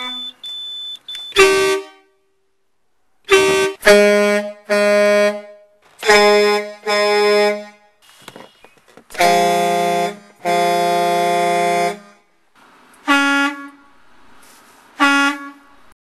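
Semi-truck horns, edited one after another: about a dozen short honks and blasts at differing pitches, from steering-wheel horn buttons and the overhead air-horn pull cord. The two longest and fullest blasts, about a second and a half each, come a little past the middle.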